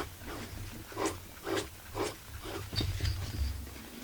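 A series of short rubbing and scraping noises from small chainsaw parts being handled and wiped, about two a second, over a steady low hum.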